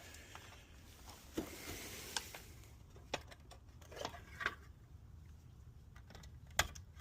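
Scattered light clicks and knocks of handling, about six in all with the sharpest near the end, over a faint low hum. The hammer drill is not running.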